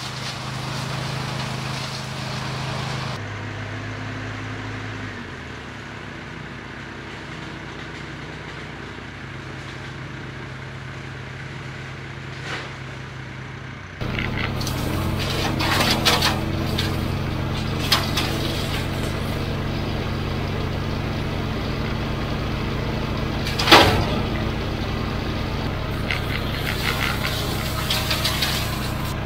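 Small engine driving an old orchard mower used as a hedge trimmer, running steadily alongside the loader's engine. Its note drops about five seconds in, and from about halfway it is louder, with sharp cracks as the blades chop into branches, the loudest about three-quarters of the way through.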